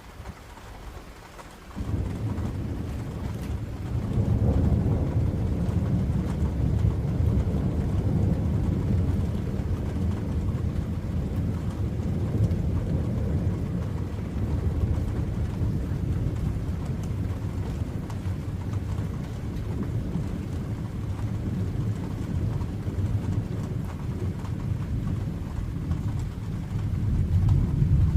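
Thunder: a long, low rumble that begins suddenly about two seconds in, grows stronger a couple of seconds later and rolls on for more than twenty seconds, swelling again near the end.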